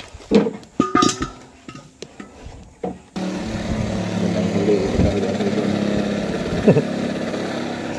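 Clinks and knocks of the air fittings being handled, then about three seconds in an air compressor starts and runs steadily with a hiss of air as a tractor tire is inflated through its newly fitted valve stem.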